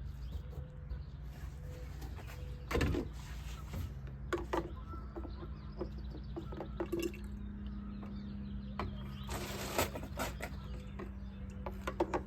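Scattered light clicks and knocks of hand work at a coolant overflow tank being emptied, over a faint steady hum, with a short hiss about ten seconds in.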